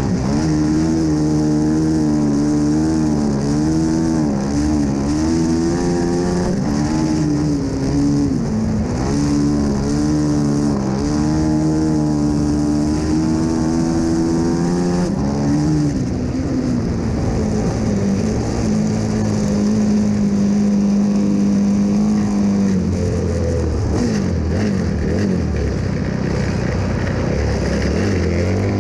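Studded-tyre race motorcycle engine running hard on an ice oval, its pitch rising and falling with the throttle through the turns, then holding steady for a few seconds before dropping low and uneven near the end as it slows. Wind rushes over the mic throughout.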